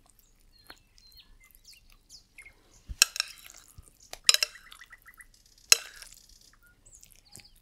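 Kitchenware clinking three times, about a second and a half apart, as a cherry-and-crumb cake filling is pressed down inside a cake ring.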